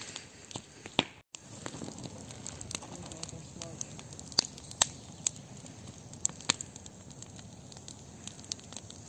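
Wood fire crackling, with sharp irregular pops over a low steady hiss.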